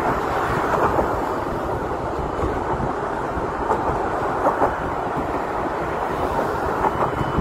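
Steady rumble of city traffic, with a few faint knocks scattered through it.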